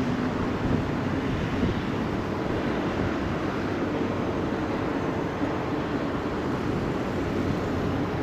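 Steady, even rumble of a moving vehicle, with a faint low hum running under it.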